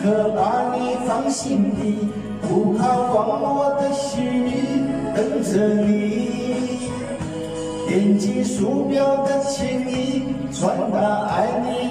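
A man singing a Mandarin pop ballad into a handheld microphone over a backing track, holding long notes with vibrato.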